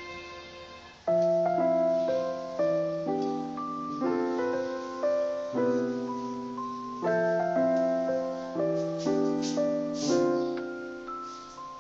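Background piano music: slow chords struck about every one and a half seconds, each left to fade before the next.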